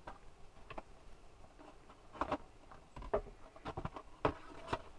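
Irregular light clicks and taps, a few over several seconds: small handling noises.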